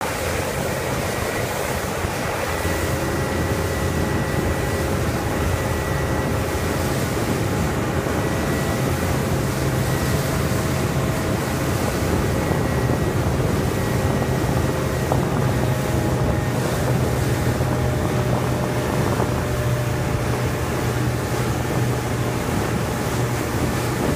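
Motorboat under way: the engine runs at a steady hum while water rushes past the hull, with wind buffeting the microphone.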